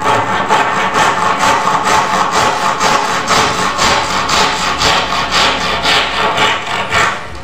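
Handsaw cutting through a wooden door-jamb timber, in steady back-and-forth strokes about three a second.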